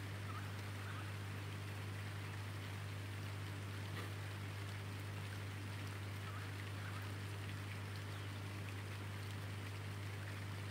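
Rain falling as a steady hiss with scattered drop ticks, landing on a tarpaulin cover and wet paving, over a steady low hum.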